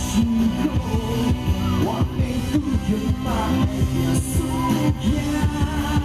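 Live band music: a rock band playing an instrumental passage with a steady pulsing beat.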